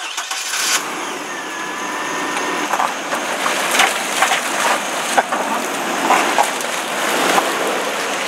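A pickup truck running and driving, with water sloshing and splashing in its tarp-lined bed. The noise comes in suddenly at the start and slowly grows louder, broken by many small splashes.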